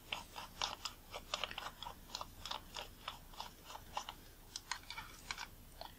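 Front optical group of a Nikon Nikkor 20mm f/2.8D lens being unscrewed by hand: a quiet, irregular run of small clicks and scrapes, several a second, from fingers gripping and turning the threaded metal barrel.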